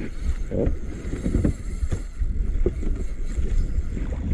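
Wind buffeting the microphone in gusts, over the sound of water moving around a small outrigger boat.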